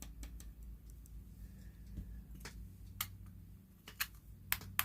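Scattered light clicks and taps from a vintage flashlight being handled while its lens is checked for glass or plastic.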